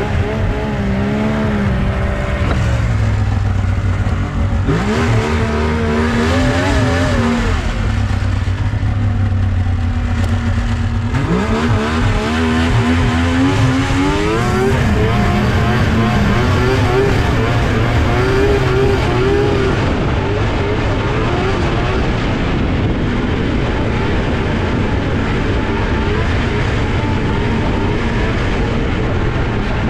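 Snowmobile engine running under way on a trail, over a steady low rumble. The engine note dips and climbs sharply twice, about five seconds in and again about eleven seconds in, as the throttle opens, then wavers up and down at a more even pace.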